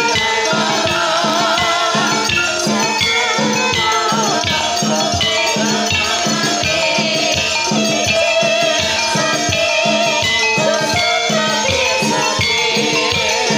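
Javanese gamelan-style music accompanying a kuda kepang (ebeg) dance: a dense, steady rhythm of drum strokes under struck metallic tones and a wavering melody line.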